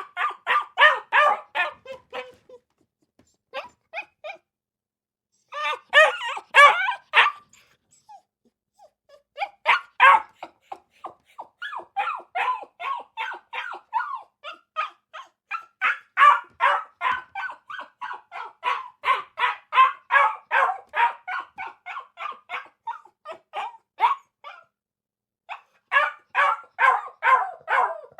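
Dog barking in rapid runs of short barks, about three or four a second, broken by pauses of a second or two.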